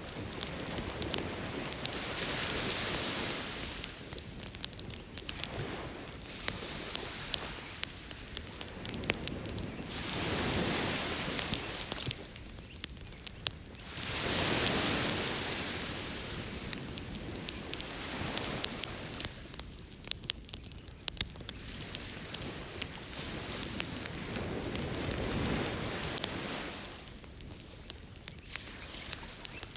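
Campfire crackling, with frequent sharp pops and snaps from the burning wood, over ocean surf that swells and fades in slow waves every few seconds.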